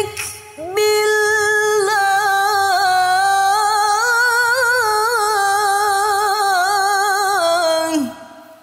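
A woman reciting the Quran in melodic tilawah style in maqam Hijaz. After a short phrase and a quick breath, she sustains one long melismatic phrase with wavering ornaments, letting the pitch fall near the end before the voice fades out.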